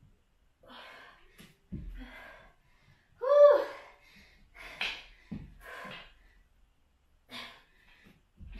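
A woman out of breath from exercise, breathing hard in short gasps, with one louder voiced exhale about three seconds in.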